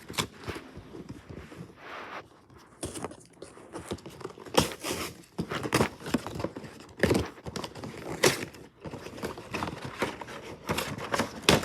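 Packaging being handled and pulled open to get an item out of its box: irregular crinkling rustles, scrapes and light knocks.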